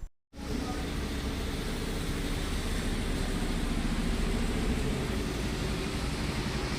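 A steady engine rumble with a low, even hum and a constant hiss behind it, starting just after a brief cut to silence.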